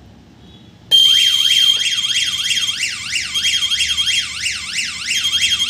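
Electronic alert of a wireless nurse call system, signalling a call. It starts suddenly about a second in: a fast warbling siren of about four sweeps a second over a steady high beep that breaks off briefly twice.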